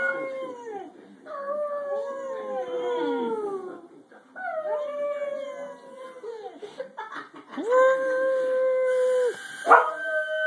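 White boxer dog howling: a run of long howls, each holding one pitch and falling away at the end, with short breaks between them. A sharp click comes about a second before the end, just as another howl begins.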